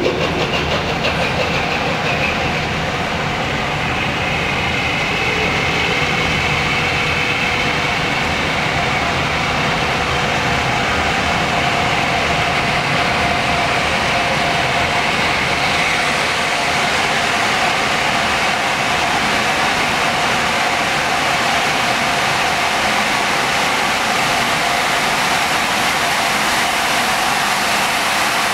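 Steady mechanical noise of a train running in a covered station, with faint steady tones through it. The hiss grows from about halfway through as a train comes into the platform.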